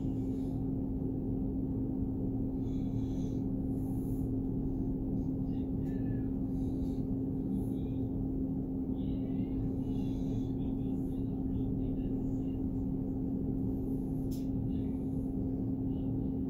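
Steady background hum with one droning tone, with faint scattered clicks and rustles above it.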